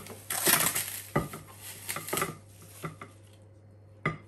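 Thin plastic film crinkling as it is pulled off and crumpled from a plastic food tub, loudest in the first second, followed by a few light knocks and clicks of the plastic containers being handled.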